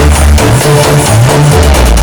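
Electronic dance music with a heavy bass line, played loud through a large sound-system rig.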